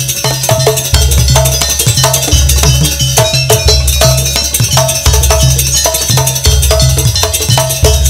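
Loud live jaranan campursari music through a sound system: fast, steady drum and metal percussion strikes over deep bass notes about a second long.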